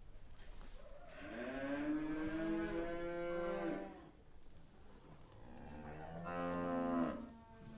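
Cattle mooing: two calls, a long drawn-out moo starting about a second in and a shorter one near the end.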